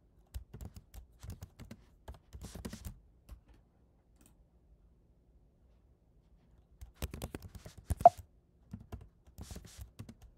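Typing on a computer keyboard: two runs of rapid keystrokes with a pause of a few seconds between them, and one noticeably louder key strike about eight seconds in.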